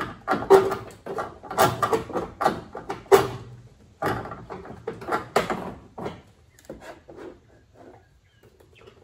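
Irregular clattering and scraping of taillight parts and wing nuts being handled against a Camaro's sheet-metal rear panel. The knocks come thick and fast for about six seconds, then thin out to a few lighter taps.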